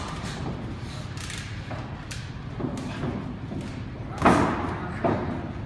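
Irregular thuds from two boxers sparring in a ring, gloved punches landing, with one heavier thud a little past four seconds in.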